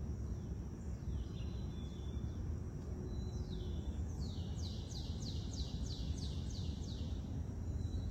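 A songbird calls a few single down-slurred whistles, then sings a run of about ten quick falling notes from about four seconds in, over a steady low background rumble.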